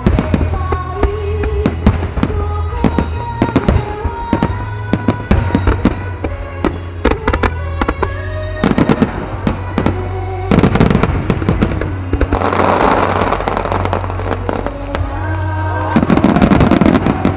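A design starmine of aerial firework shells bursting in rapid succession, sharp bangs one after another, with music playing underneath. Twice, around the middle and again near the end, the bursts give way to a dense, loud crackling of crackle stars.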